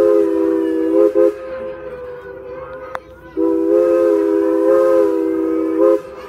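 Steam whistle of Strasburg Rail Road's 1910 2-6-0 Mogul #89, heard from the train it is pulling, sounding a chord of several notes. A long blast ends in two quick toots about a second in, and after a pause of about two seconds comes a second long blast.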